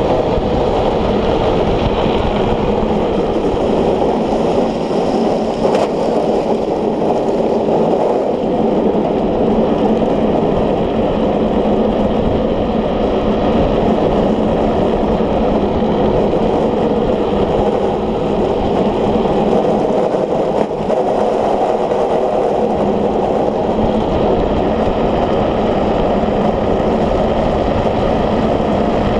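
Steady, loud rush of wind and tyre noise from an unpowered gravity speed trike running fast downhill on asphalt, the wind buffeting the onboard microphone.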